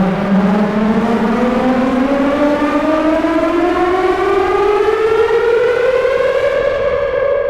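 Trailer sound effect: a siren-like riser, one buzzy tone that glides slowly and steadily upward in pitch, over a hiss.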